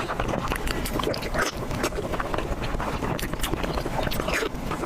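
A person chewing and biting salmon close to the microphone: a dense run of wet mouth clicks and smacks.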